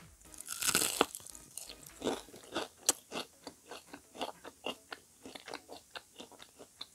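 Bite into a crispy deep-fried squash fritter (kalabasa okoy), with a loud crunch about a second in and a sharp crack near the middle. Then steady crunchy chewing follows, about four crunches a second, close to the microphone.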